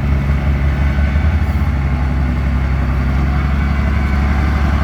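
Heavy diesel truck engine running steadily and loudly, a low even throb with no change in pitch.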